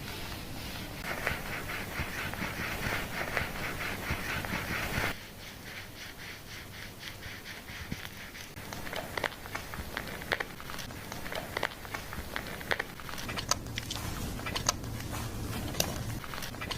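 Hands working shampoo lather into wet hair: dense, wet crackling that cuts off abruptly about five seconds in, followed by scattered crackles and pops of foam.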